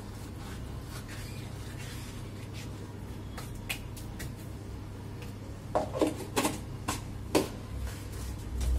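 Faint rustle of carom seeds being crushed between the palms over a low steady hum, then about five sharp clinks and knocks against a steel plate of flour in the second half.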